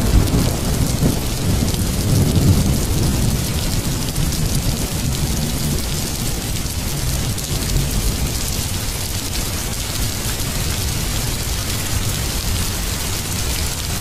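Steady rain falling, with a deep rumble of thunder in the first few seconds that fades away.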